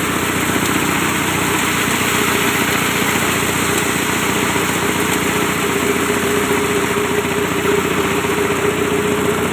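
8.5 hp diesel engine of a multi-purpose chopper/grinder machine running steadily, with a steady tone that grows stronger near the end.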